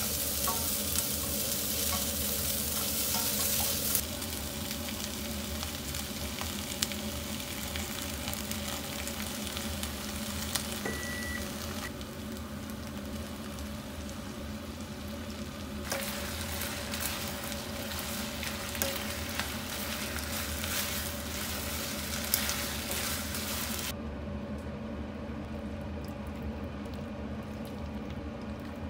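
Sausages and chopped vegetables sizzling in a hot wok while a spatula stirs and scrapes them, with small clicks against the pan. The sizzle steps abruptly louder or quieter a few times.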